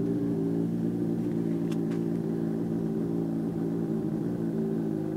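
2009 Honda CBR600RR's inline-four engine idling steadily through a full Toce exhaust system, with the resonator and catalytic converter deleted, heard from about 50 feet away. The idle measures in the high 60s to low 70s decibels at that distance.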